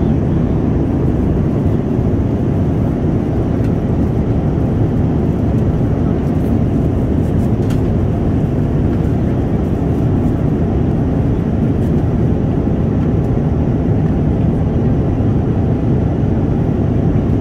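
Steady, loud cabin noise of a Boeing 787-9 airliner, the rumble of its engines and the airflow heard from a window seat, with no change in level.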